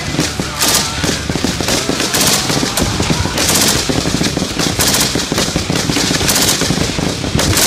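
Belt-fed machine gun firing from its bipod in short bursts, about one burst a second, each a quick string of shots.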